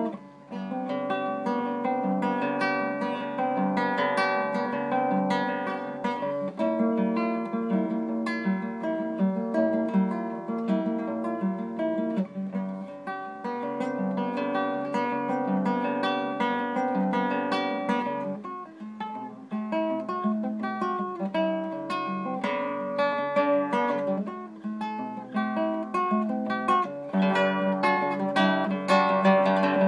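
Solo nylon-string classical guitar played fingerstyle: plucked notes and chords ringing on continuously, with brief dips in loudness just after the start and again about two-thirds of the way through.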